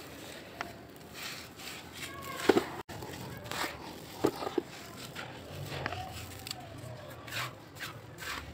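Dry soil crumbling and hands raking through loose, powdery dirt: an irregular run of crackles and gritty rustles.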